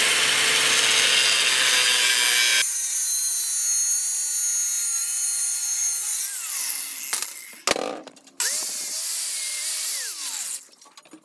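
Angle grinder with an abrasive cut-off wheel cutting through a metal bracket clamped in a vise. Its pitch falls as it winds down about six seconds in; it is run up again briefly a little after eight seconds and winds down once more near the end.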